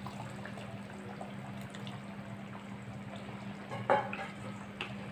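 Fish curry simmering and bubbling in a pot as coconut milk is poured in, then a metal ladle stirring it. The ladle knocks sharply against the pot about four seconds in and clicks once more shortly after.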